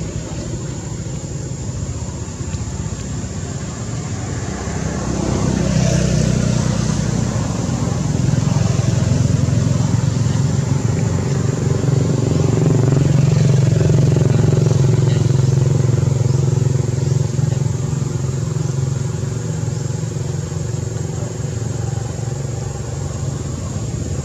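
A motor engine running steadily, growing louder from about five seconds in, loudest around the middle, then easing off.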